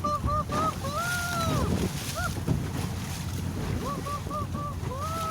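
A boat's engine and wind run steadily underneath a series of high, squeaky whistled calls. There is a quick run of short chirps near the start and again about four seconds in, with long arched whistles about a second in and near the end.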